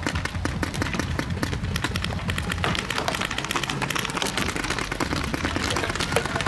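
Paintball markers firing in rapid, overlapping volleys, a dense stream of sharp pops many times a second.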